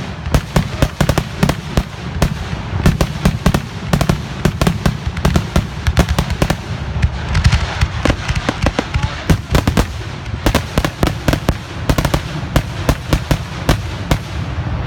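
Fireworks finale barrage: aerial shells bursting in rapid, near-continuous reports, several a second, with a denser stretch about halfway through.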